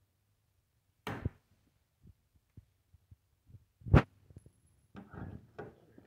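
Hand pop-rivet tool setting a rivet through a steel light-bar bracket, the mandrel snapping off with one sharp crack about four seconds in. Smaller clicks and rasps from the tool's handles and handling come before and after it.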